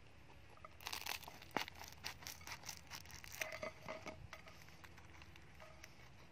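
Crisp baguette crust crackling and tearing as it is cut and pulled apart by hand, a quick run of small snaps from about a second in until about four seconds, then it stops.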